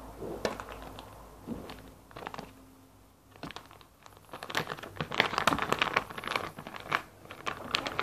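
Crinkly plastic packet being handled and squeezed: a few sharp crackles at first, then dense, continuous crinkling from about halfway through.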